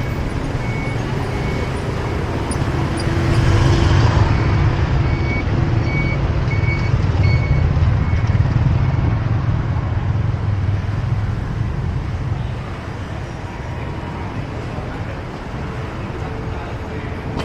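Busy city-street traffic of motorbikes and cars passing close by, the engine rumble swelling about four seconds in and easing off after about twelve seconds, with a string of short high beeps through the middle.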